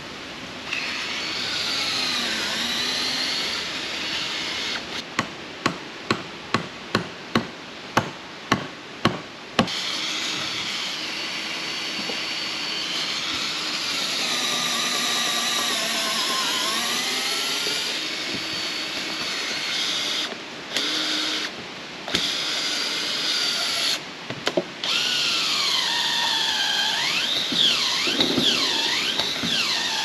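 Cordless drill boring through the wooden bridge deck boards, its motor speed rising and falling under load and stopping and starting several times. About five seconds in comes a run of about ten sharp knocks, roughly two a second.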